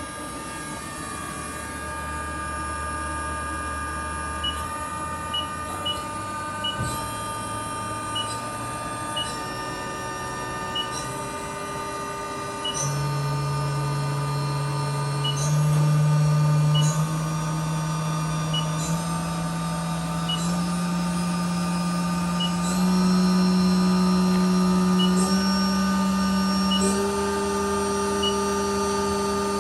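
Haas VF-2SS machining center's spindle running and stepping up in speed in stages, each step a higher, louder steady whine, with a high electronic whine shifting at each step. Faint ticks come every second or two.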